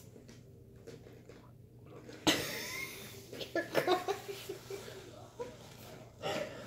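A man's pained breathing through the mouth against the burn of a Carolina Reaper chip: a sudden loud rush of air about two seconds in, short strained vocal noises a second or so later, and another sharp breath near the end.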